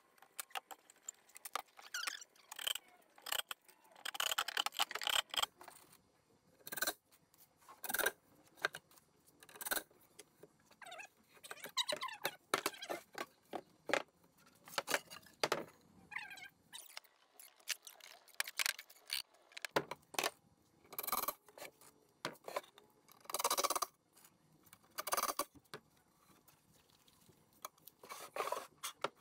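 Plywood panels and tools being handled on a workbench: irregular knocks, taps and scrapes, with a few brief squeaks.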